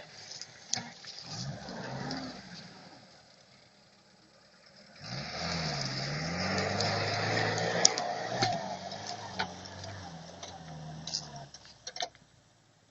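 A UAZ-469 engine comes in about five seconds in and runs for about six seconds, its revs dipping and rising. It stops abruptly near the end, followed by a few clicks.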